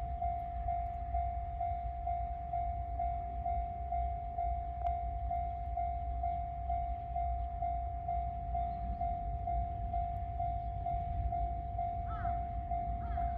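Japanese railway level-crossing warning alarm ringing: a single electronic bell tone repeating evenly about three times a second, over a steady low rumble.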